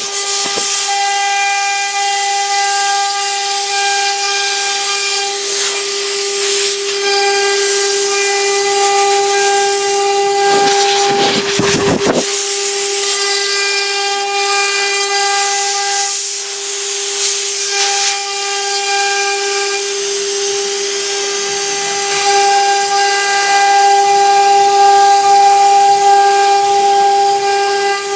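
CNC router's 3 kW water-cooled spindle running with a steady high whine while the bit engraves MDF, over a constant hiss of cutting. A brief rougher burst of noise comes about eleven seconds in.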